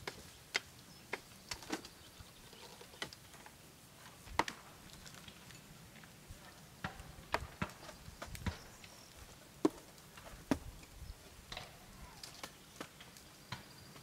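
Irregular sharp wooden knocks and cracks, a few each second with some louder than others, typical of hatchets tapping and prising bark as cork is stripped from a cork oak.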